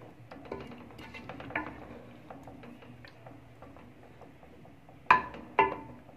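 A spoon stirring curry in a metal pot, with light scraping clicks, then two sharp clanks against the pot about five seconds in that leave the metal ringing briefly. Soft background music plays underneath.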